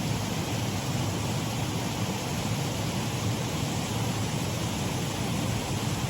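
Shallow waterfall on a mill race stream: water running over the drop in a steady, even rush.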